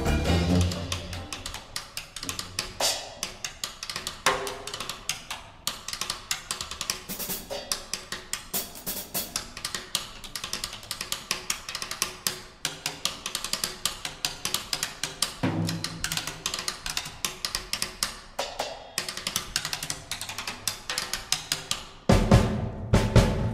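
Drum solo on a Tama drum kit played with sticks: fast snare and tom strokes with bass drum and cymbal crashes. Near the end the full band comes back in loudly.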